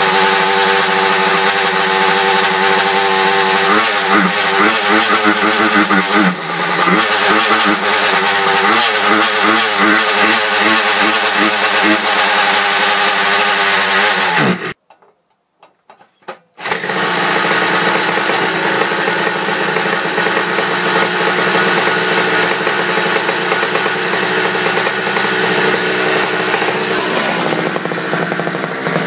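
Sprocatti rotary-valve two-stroke engine of a Vespa/Piaggio scooter running on the stand, its revs wavering up and down on a newly fitted Dell'Orto 30 VHSH carburettor that has not yet been tuned. About halfway through the sound drops out suddenly for about two seconds, then the engine is heard again, running more evenly.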